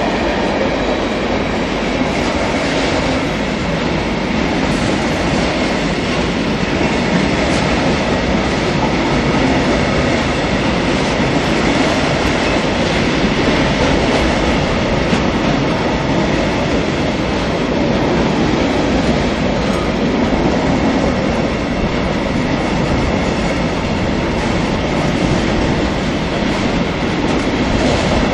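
Freight train of empty stanchioned flat wagons rolling steadily past on the rails, a continuous rumble and clatter of wheels on track.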